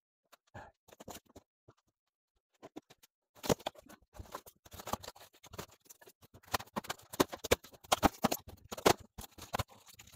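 Rigid foam board from a model railway layout, with track on it, being pried up and broken away by hand: a few scattered clicks, then from about three seconds in a dense, irregular run of cracking and scraping.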